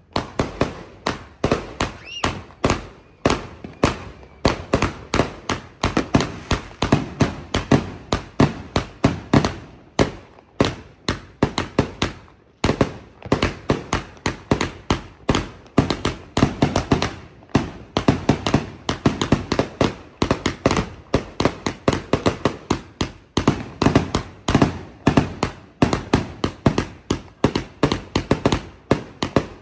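A 100-shot firework cake firing in rapid succession: shots launching and bursting, several a second, with a couple of brief lulls partway through.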